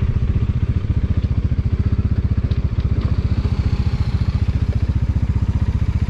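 Bajaj Dominar 400's single-cylinder engine running at low revs, a rapid, even beat of exhaust pulses.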